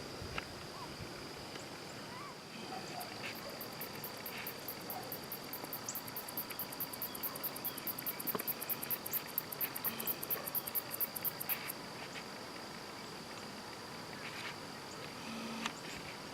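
Insects calling: a steady high-pitched drone, joined about three seconds in by a very high, rapidly pulsed chirping at about five pulses a second that grows louder and then stops after about twelve seconds.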